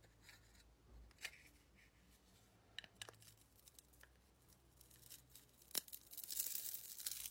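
Multi-blade hand slicer's steel blades cutting down through a solid bar: a few faint taps and scrapes, then a sharp click and a crisp scraping, crunching cut near the end, the loudest part.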